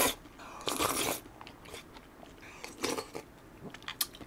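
A person slurping instant ramyeon noodles and broth from a bowl held to the mouth: two loud slurps in the first second, then chewing with small clicks and a shorter slurp near the end.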